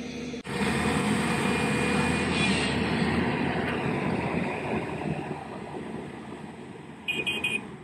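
Heavy diesel machinery running loud, from the stuck tipper truck and the excavators pulling it out. The sound starts abruptly about half a second in and fades over the last few seconds. Near the end come three quick high beeps.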